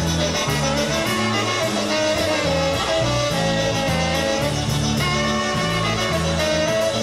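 Live polka band playing a dance tune: horns carry the melody over a bass line that steps between notes about twice a second and a steady beat.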